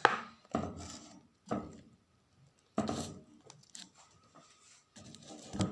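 Handling noises: about five separate knocks and scrapes of objects being picked up, moved and set down, the sharpest right at the start and another near the end.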